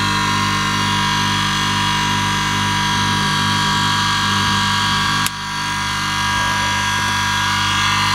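A 24 V Toyota Denso DC motor, rebuilt with a new commutator, running steadily on the bench with a constant whine and hum during its test run. About five seconds in there is a sharp click, after which the sound dips and builds back up.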